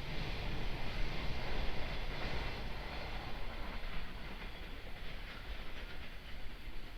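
Freight train of container wagons rolling through on the rails, wheels clattering and rumbling. The sound fades gradually over the second half as the train draws away.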